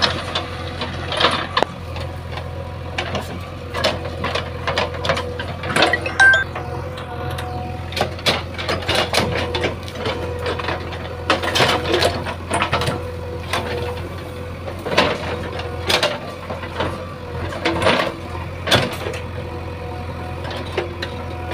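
JCB 3DX backhoe loader's diesel engine running steadily, with frequent sharp clanks and knocks as the machine works.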